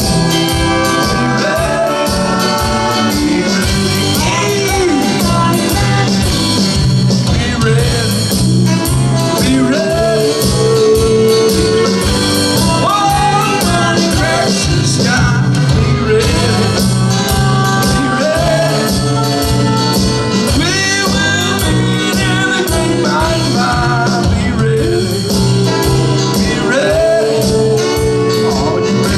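A live church praise band playing a song, with drums keeping a steady beat under bass and a gliding lead melody that may be sung.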